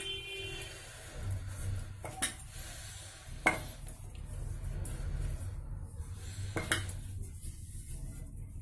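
Dough being kneaded by hand in a stainless steel plate: a dull, steady rubbing and pressing, with three sharp clinks against the metal, the loudest about three and a half seconds in.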